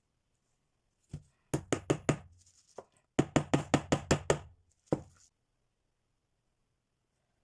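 A series of sharp, quick knocks: one, then a run of four, then a run of about eight at roughly five a second, then a last one, each with a short ring.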